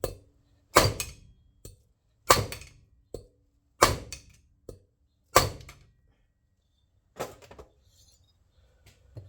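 Hammer blows on metal: four hard, ringing strikes about a second and a half apart, each followed by a lighter knock, then a weaker strike near the end. They are blows to knock a stuck tapered part off a Tecumseh four-stroke lawnmower engine, and it does not come free.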